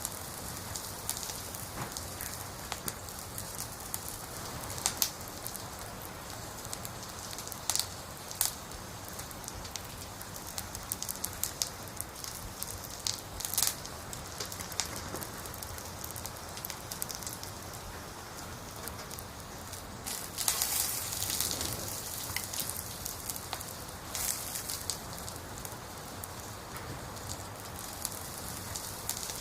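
Campfire of burning firewood crackling: a steady hiss with irregular sharp pops and snaps, a denser flurry of crackles about two-thirds of the way through.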